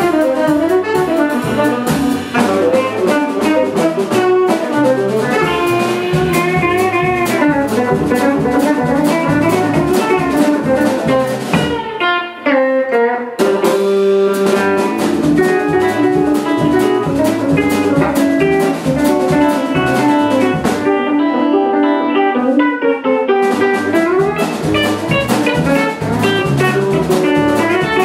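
Live jazz-fusion band playing: electric guitar over a drum kit. The cymbals drop out briefly twice.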